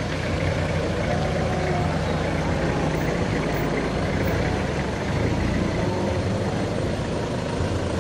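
Engines of a slow line of cars and minivans running steadily at low speed, a continuous low engine sound.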